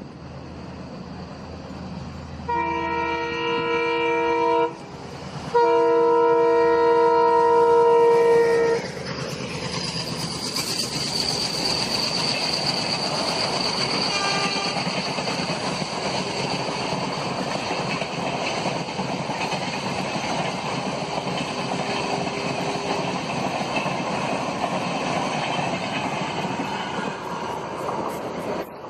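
Locomotive horn sounding two chord blasts, a shorter one and then a longer one, followed by an express train running past with a steady rush of wheels on rails and a high whine.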